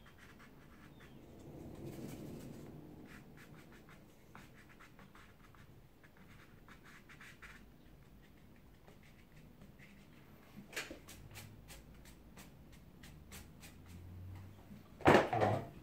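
Wide flat brush scraping across textured watercolour paper in a series of soft, short strokes. Near the end comes a single louder rustle or knock.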